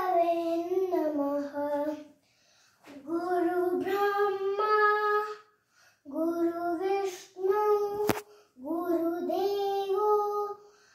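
A young girl singing unaccompanied in long held phrases with short breaks between them, while she dances. A single sharp click sounds about eight seconds in.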